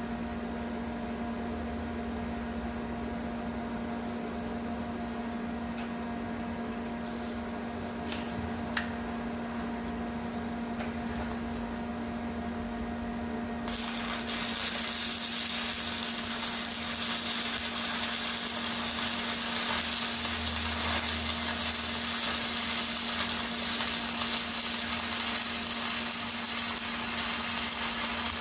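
A steady electrical hum with a few faint ticks, then about halfway through a stick-welding arc on a cellulose electrode is struck and crackles and hisses steadily as it burns along the pipe joint.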